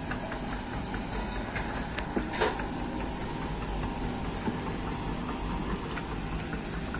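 Steady hum of an engine idling, with a few faint clicks and one brief louder sound about two and a half seconds in.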